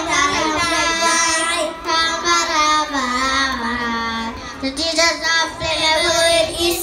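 A group of young children singing together in unison, with long held and gliding notes.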